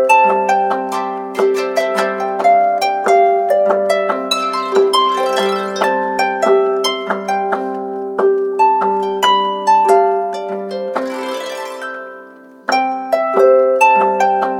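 Android phone tone: a harp-like plucked melody of many short notes. It fades out about twelve and a half seconds in and starts again from the top as it loops.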